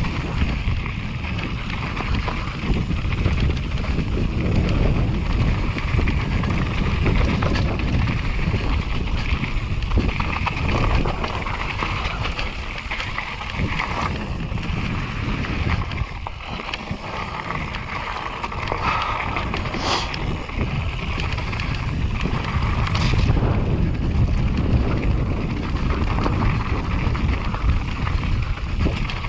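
YT Capra enduro mountain bike descending a rocky gravel trail at speed: wind buffeting the camera microphone over tyres crunching on loose stones and the bike rattling, with a couple of sharp knocks about two-thirds of the way in.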